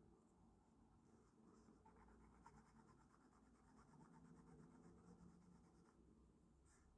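Faint scratching of watercolor pencils on paper: quick, even back-and-forth colouring strokes from about two seconds in until about six seconds in.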